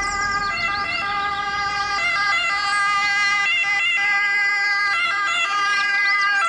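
Siren of an Italian Red Cross Mercedes-Benz Sprinter ambulance on an emergency run. The high tones are held steady and step in pitch now and then.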